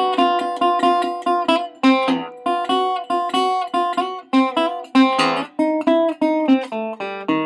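Guitar playing a blues instrumental passage without singing: a steady run of picked and strummed notes over a repeating bass note.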